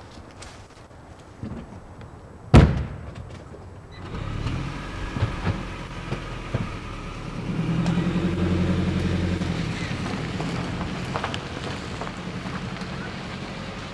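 A car door shuts with one loud thump, then the car's engine starts and runs, rising for a couple of seconds near the middle before settling to a steady run.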